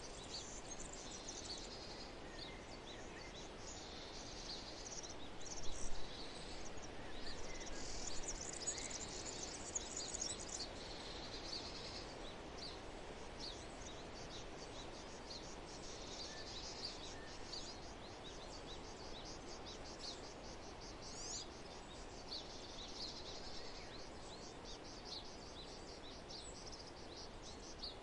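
Nature ambience: a steady low rush of background noise with many quick, high chirps scattered through it. The chirps are busiest and loudest in the first ten seconds or so.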